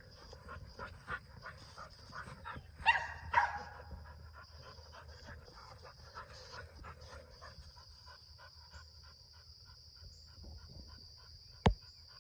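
A dog panting fast and hard, worn out from running after a ball. About three seconds in it gives two short barks, and there is one sharp click near the end.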